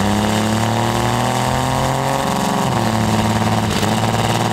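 Cummins inline-six turbo diesel running hard under load, its pitch holding fairly steady with a brief dip about two seconds in. The engine is missing on a cylinder, which the owner first suspects is an injector hung open.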